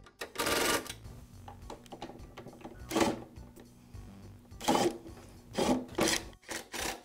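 Short, irregular scuffing and clicking handling noises as hands work the rubber fuel line back onto the plastic fuel tank outlet of a small lawn mower engine. There are about half a dozen separate scrapes, the longest less than a second in.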